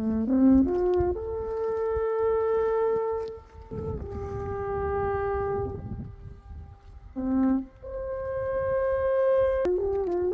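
Alphorn playing a slow melody of long held notes, with a few quick notes at the start and a quicker run near the end.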